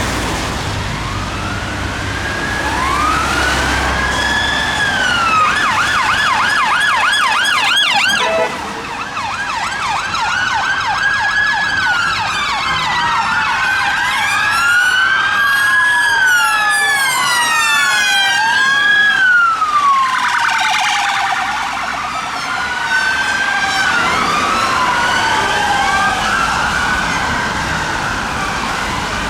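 Several UK police vehicle sirens sounding together as a convoy passes, their slow wailing sweeps overlapping out of step, with stretches of fast yelp from one or more sirens in the first third. Road and engine noise of the vehicles runs underneath.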